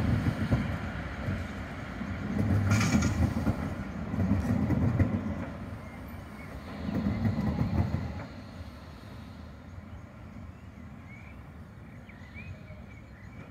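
Articulated tram running across a track junction, rumbling and thudding in several heavy swells as its wheels pass over the points and crossings, with a brief sharp clack about three seconds in. After about eight seconds it fades as the tram moves away.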